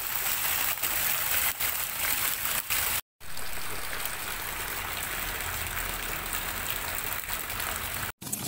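Heavy rain and running rainwater, a steady rushing hiss. After a short silent break about three seconds in, a steadier rush of rainwater pouring down from above.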